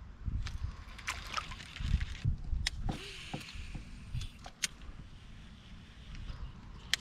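Canoe on the water: low water sloshing and irregular dull knocks against the hull, with a handful of sharp clicks scattered through, the loudest near the end.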